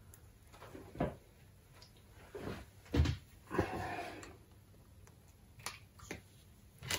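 Handling noise from thin insulated wire on a wooden worktop: a few scattered light knocks and clicks, and a brief rustling scrape as the wire is pulled across the wood. Near the end, a hand tool clicks against the worktop as it is picked up.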